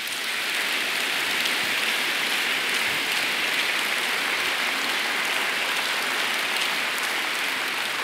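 A large auditorium audience applauding, a dense, steady clapping of many hands.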